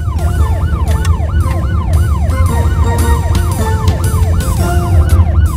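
Police car siren sound effect in a fast yelp, its pitch rising and falling about three times a second over a steady low rumble.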